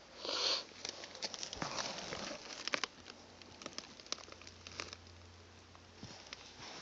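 Camera handling noise: faint rubbing and scattered small clicks, with a short hiss about half a second in.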